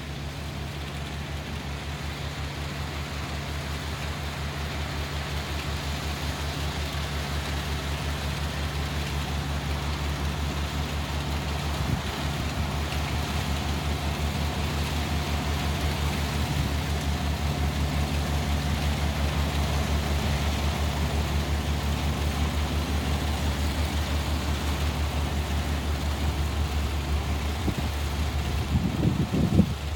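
Combine harvester running steadily through standing rice, its engine drone and the fast clatter of the cutting and threshing machinery slowly growing louder. A couple of short knocks stand out, one midway and one near the end.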